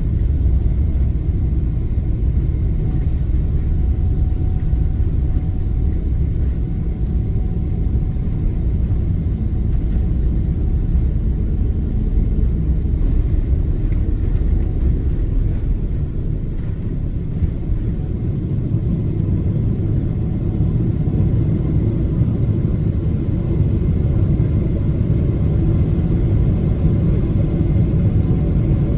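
Boeing 777-300ER's GE90-115B engines at takeoff thrust, heard from inside the cabin: a loud, steady, deep rumble through the takeoff roll and liftoff.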